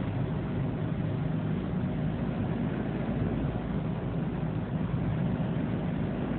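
Steady engine and road noise inside a moving vehicle's cabin, picked up by a dashcam microphone: an unbroken low drone.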